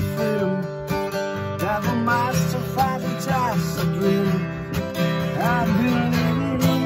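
Strummed acoustic guitar with a man's voice singing over it.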